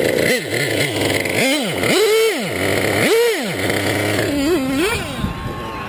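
Nitro two-stroke engine of a Traxxas Jato 3.3 RC truck running and being blipped: the revs shoot up and drop back four times in quick succession, then waver at a lower speed near the end.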